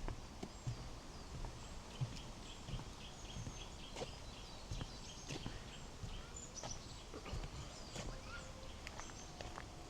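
Small songbirds singing and chirping, with a run of quick repeated high notes in the first few seconds, over footsteps on a path.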